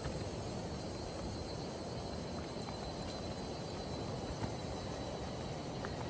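Forest ambience: insects droning on a steady high note over a steady low rushing noise.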